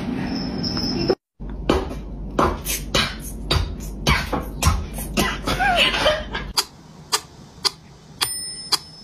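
Background music with a steady clicking beat, about two to three clicks a second, after a brief silence near the start. A short bell-like ding rings near the end.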